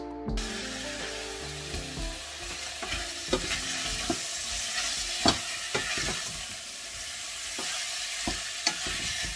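Pieces of meat sizzling as they fry in a hot pan, with irregular clicks and scrapes of a utensil stirring them; the sizzle starts abruptly just after the beginning.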